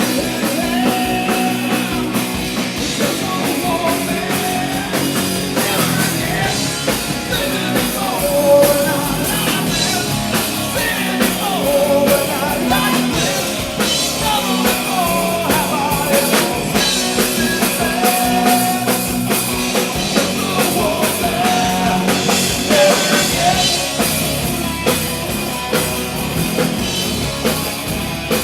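Live rock band playing an instrumental passage between verses: electric guitars, bass and a drum kit with steady cymbal hits, and a bending melodic line over the top. Picked up by a DSLR camera's built-in microphone.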